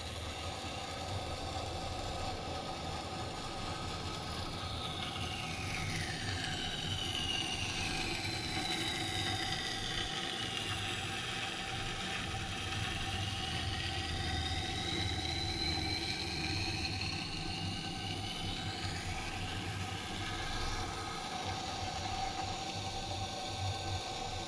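Motor-driven wet sharpening stone running with a steady hum while a knife blade is ground along it; a high grinding tone slides down and back up as the blade is drawn across the stone.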